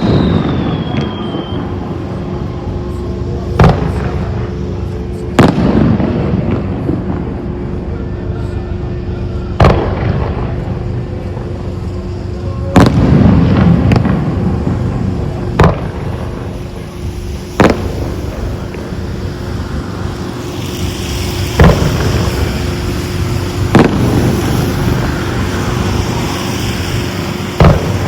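Aerial fireworks shells bursting, about ten sharp booms spaced two to four seconds apart. A crackling spread of noise follows the bursts in the last third.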